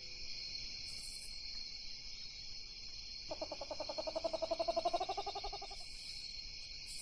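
Laughing kookaburra calling: a rapid run of chuckling notes that climbs in pitch, starting about three seconds in and lasting some two and a half seconds, over a steady high chorus of night insects.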